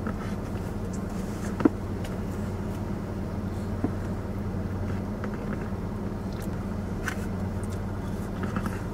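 Steady low hum of a running car, heard inside its cabin, with a few small clicks and taps.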